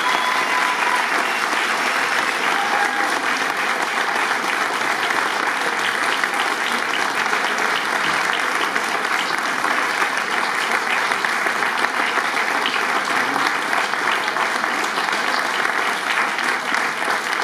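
Audience applauding steadily, dense clapping throughout, with the last note of the dance music dying away in the first second.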